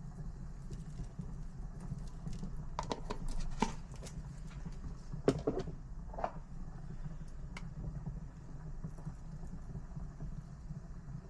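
A few light knocks and clicks, in a cluster about three seconds in and another around five to six seconds, over a steady low hum.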